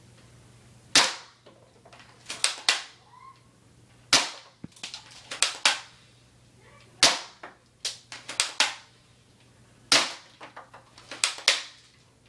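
Spring-powered airsoft rifle (FN SCAR-L replica) firing four single shots, each a sharp crack, about three seconds apart. Between shots comes a quick cluster of smaller clicks.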